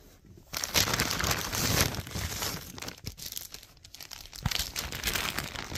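Plastic bags crinkling and rustling as hands rummage in a plastic mailer and pull a plastic bag out. It starts about half a second in, is loudest over the next second or so, then goes on more quietly and unevenly.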